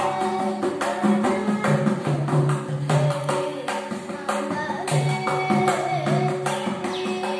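Mridangam played by hand in a fast, continuous rhythm: sharp pitched strokes ringing on the right head, mixed with deep bass strokes on the left head that come and go.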